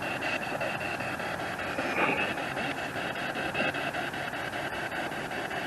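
SB7 spirit box sweeping through radio frequencies: a steady hiss of static chopped into rapid, evenly spaced blips, many a second.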